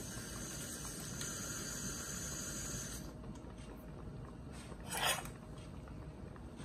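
Instant Pot electric pressure cooker hissing steam as it builds up heat and pressure, the hiss cutting off abruptly about three seconds in. A brief clatter about five seconds in.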